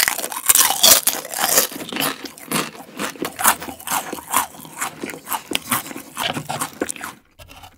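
Crisp, close-miked crunching of a bite of gim-bugak, a seaweed chip coated in glutinous rice and deep-fried. A loud bite comes at the start, followed by a rapid run of sharp crunches as it is chewed, stopping about seven seconds in.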